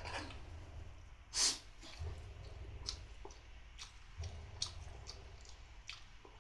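Light scattered clicks and taps of a spoon on a plate during a meal, with one short, loud noisy breath through the nose about a second and a half in, over a low steady hum.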